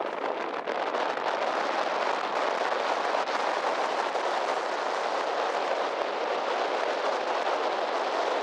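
Steady rushing noise on the deck of a moving sightseeing boat: wind on the microphone mixed with water rushing along the hull, with no engine note standing out.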